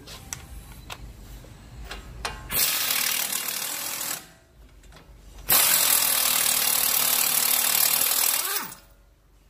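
Pneumatic impact wrench running in two bursts, a short one and then a longer one of about three seconds, removing the nut from the tie rod end. A few light clicks of tool handling come before it.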